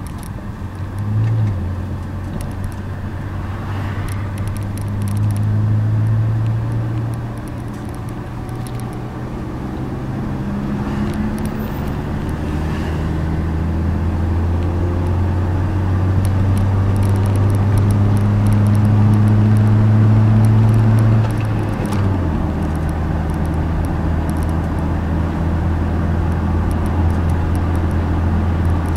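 Car engine and tyre noise heard from inside the moving car's cabin: a low engine hum over road rumble. The engine's pitch shifts a few times. The hum grows slowly louder through the middle, then drops suddenly about three-quarters of the way through.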